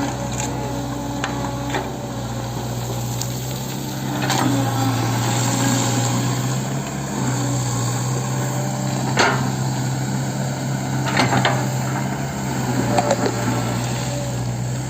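Hitachi 110M hydraulic excavator's diesel engine running steadily, with four sharp knocks spread through it.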